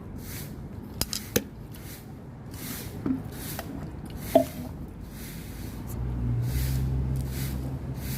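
Light clicks and knocks of dishes and glassware being handled, a few sharp ones about a second in and two more around three and four and a half seconds; at about six seconds a steady low hum starts and keeps on.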